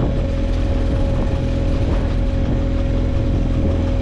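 Boat's outboard motor running steadily at low trolling speed, a constant hum with a steady whine.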